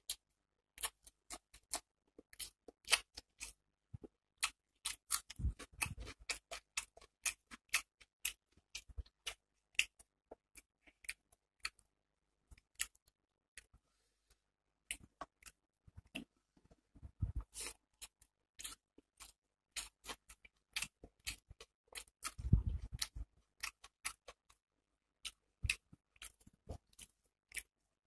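Close-miked eating by hand: fingers squishing and mixing rice and hilsa curry on a steel plate, with chewing. It comes as a dense, irregular run of short wet clicks and smacks, with a few heavier bursts of handling about 6, 17 and 23 seconds in.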